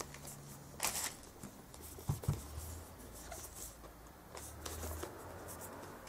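Quiet handling of a cardboard product box and its loose cellophane wrap: a short crinkle about a second in, two soft knocks around two seconds in, then faint rustles and ticks.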